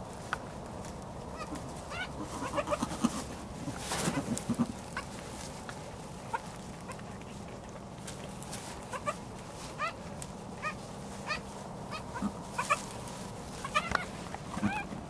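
Newborn goat kids making short, high, repeated little bleats, with rustling in straw now and then.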